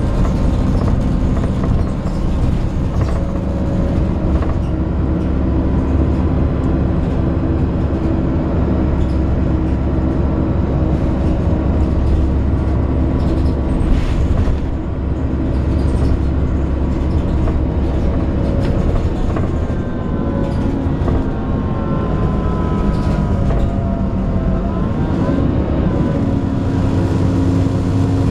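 Alexander Dennis Enviro 400 double-decker bus on a Trident 2 chassis heard from on board: a steady low drone of engine and driveline with the groaning noise it is noted for, and rattles. About two-thirds of the way through, whining tones fall in pitch as the bus slows, then rise briefly as it pulls away again.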